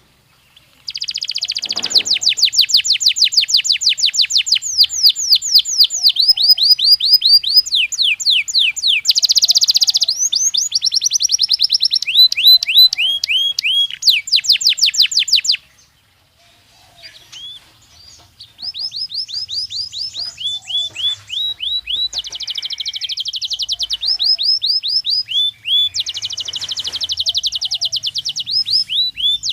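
Belgian canary singing: long runs of fast repeated trills and rapid falling note sweeps, strongest high up. The song breaks off for about two seconds past the middle, then starts again with further trill runs.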